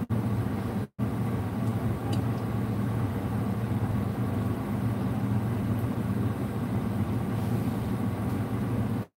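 Steady low mechanical hum, broken once by a brief cut to silence about a second in.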